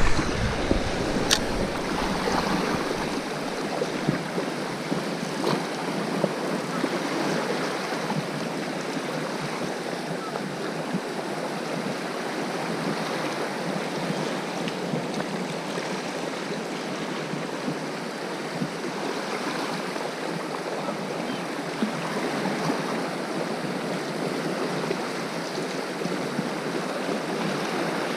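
Sea surf washing steadily on a rocky shore, a continuous wash of water noise. There is a single sharp click about a second in.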